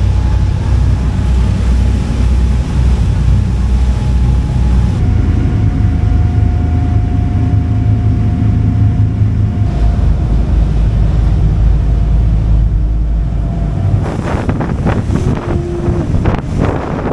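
Passenger ferry's engines running at speed: a heavy low drone with a steady whine over it, under wind rushing across the microphone. About three-quarters of the way in, the drone gives way to gusty wind buffeting the microphone, with the wake's rushing water alongside.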